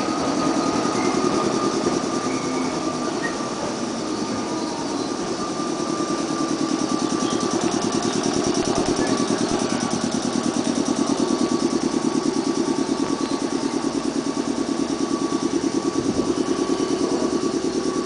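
JR West 105 series electric train standing at the platform, its under-floor auxiliary machinery running with a steady whine. About six seconds in, a fast, even pulsing joins it and keeps going.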